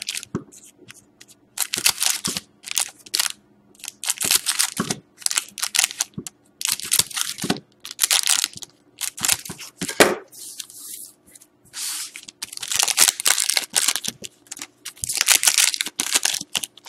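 Foil wrappers of 2012-13 Panini Certified hockey card packs crinkling as they are handled and cut open with scissors, in short irregular bursts.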